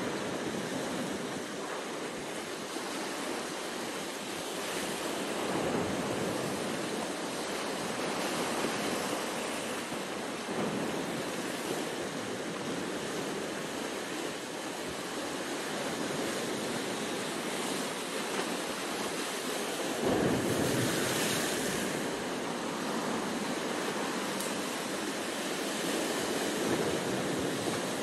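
Sea surf breaking and washing over shoreline rocks in rolling surges that rise and fall every few seconds, with the biggest surge about twenty seconds in.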